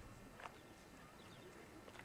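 Near silence: faint background hiss with one soft click about half a second in.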